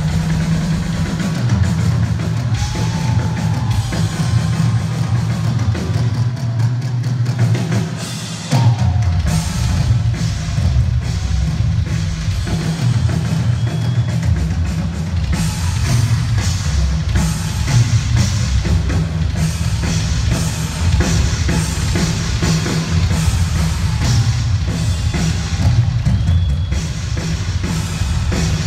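Rock drum solo on a full drum kit, amplified through an arena PA: continuous bass drum, snare and cymbal hits, with a brief let-up just before a heavy hit about nine seconds in.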